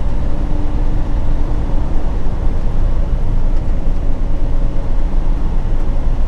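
Steady engine drone and road rumble inside a semi-truck's cab while it drives at highway speed.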